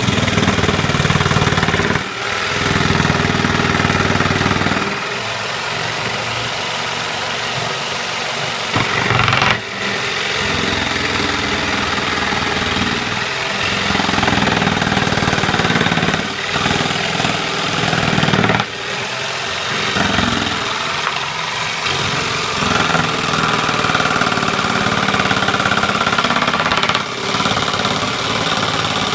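Table-mounted electric jigsaw running at its top speed setting and cutting through wood, with a steady rattling saw noise that dips briefly several times.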